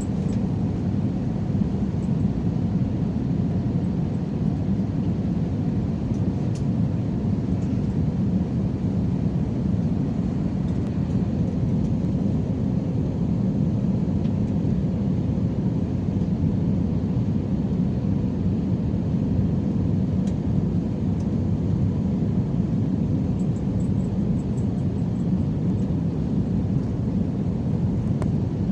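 Steady cabin noise of an Airbus A320-216 in flight: an even, low rumble of its CFM56-5B engines and the airflow, unchanging throughout.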